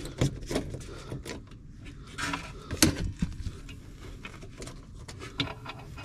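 A screwdriver backing out the sheet-metal screw that holds a furnace high-limit switch, with small irregular metallic clicks and scrapes, the sharpest about three seconds in. It is the first step in removing the faulty temperature limit.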